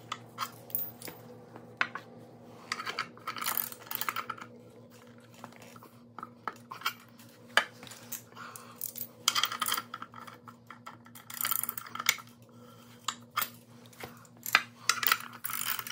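Socket wrench ratcheting in short runs of rapid clicks, with metal tool clinks, as the control arm shaft nuts are tightened a half turn at a time.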